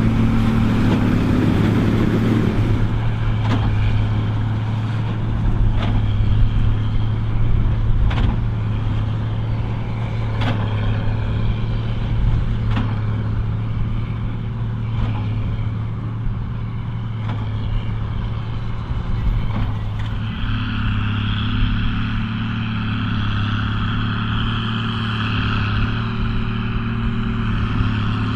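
Case 2294 tractor's six-cylinder diesel engine running steadily under load while pulling a Massey Ferguson 190 big baler, with a regular knock from the baler about every two seconds. About twenty seconds in, a higher whine joins the engine sound.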